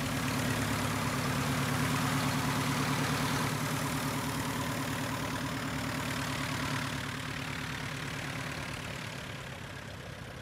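Piper Super Cub light aircraft's four-cylinder piston engine running steadily at low taxiing power while the plane rolls on the tarmac; the steady drone fades out over the last few seconds.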